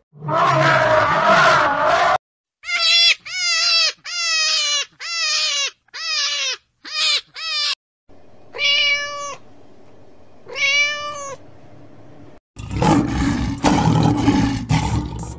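An elephant calls for about two seconds. Then a domestic cat meows: seven short meows, followed by two longer, drawn-out ones. Near the end, a lion roars with a loud, rough roar.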